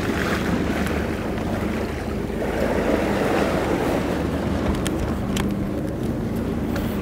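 Boat engine running steadily under water rushing and splashing alongside the hull, with wind buffeting the microphone.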